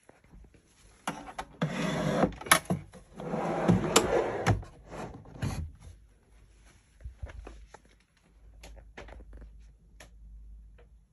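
A wooden pull-out shelf sliding, in two scraping runs of about a second each with sharp knocks among them, followed by scattered light clicks and handling knocks.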